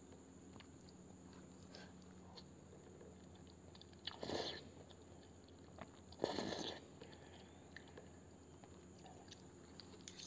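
Close-miked eating of hot instant soupy noodles: two short, loud slurps of noodle strands about four and six seconds in, with quiet chewing and small clicks of the fork in between.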